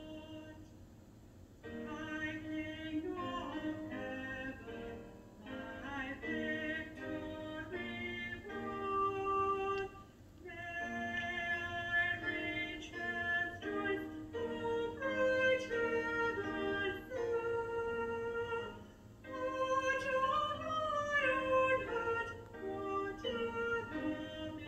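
A recorded hymn: sung melody over sustained accompaniment, in phrases with short pauses between them.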